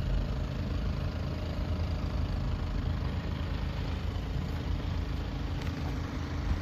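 A boat's engine running with a steady low rumble.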